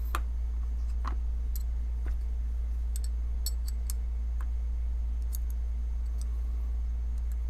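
Scattered light metallic clicks and ticks of small pocketknife parts being handled as the blade is fitted back onto the handle scale, a few in quick succession about halfway through, over a steady low hum.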